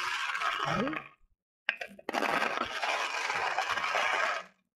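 Glass marbles clattering and clinking against one another as a hand stirs and scoops them in a basin of shallow water. Two stretches of dense rattling, the second starting about two seconds in, each cutting off suddenly.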